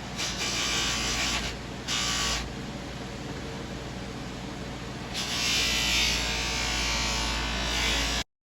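Bench grinder fitted with a buffing wheel charged with red polishing rouge, its motor humming steadily. Steel shotgun parts are pressed against the wheel for louder rushing stretches about a second in, around two seconds in, and from about five seconds on. The sound cuts off suddenly near the end.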